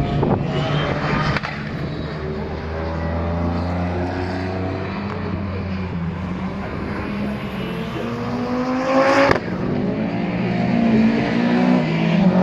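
Rally car engines revving hard and changing gear as the cars drive past, the pitch rising and falling with each shift; one engine climbs to a loud peak about nine seconds in, then the sound cuts off sharply.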